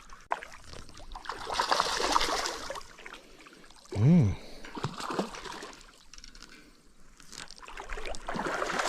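Water splashing and sloshing as a hooked trout is played close in and landed, in two spells of splashing. A short wordless vocal exclamation comes about four seconds in.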